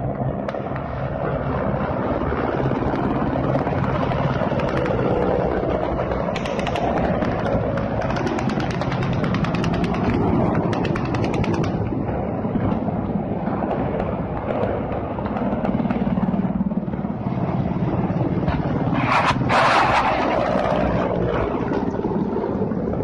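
Low-flying attack helicopters passing close, with steady rotor and turbine noise. For several seconds midway there is a fast, even run of sharp pulses, and near the end there is a louder burst.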